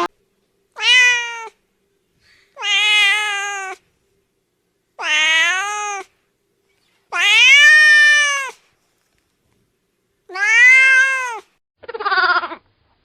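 Domestic cat meowing: six separate meows, each rising then falling in pitch, with silence between; the last is shorter and rougher.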